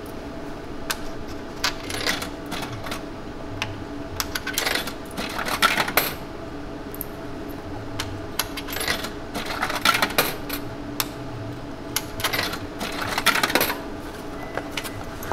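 Coins clinking and clattering through a drinks vending machine's coin mechanism in several bursts of sharp metallic clicks, over a steady hum.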